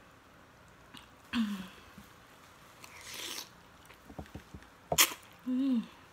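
A person slurping instant noodles off a fork. There is an airy suck about three seconds in, small wet clicks, a sharp lip smack about five seconds in, and two short hums.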